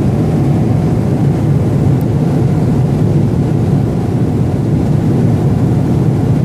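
Steady low rumble of jet engines and rushing air inside the cabin of a Boeing 777-300 airliner climbing out shortly after takeoff.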